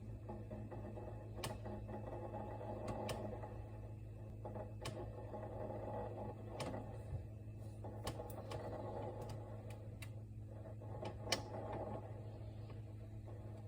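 Samsung RT32 refrigerator running with a steady low hum and a fluctuating rattle, broken by irregular sharp clicks and ticks a second or two apart: the abnormal noise the fridge is making.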